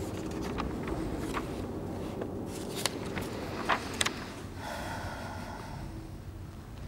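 Handling of a large book's paper pages close to a lectern microphone, with a few sharp clicks about three and four seconds in, over low steady background noise.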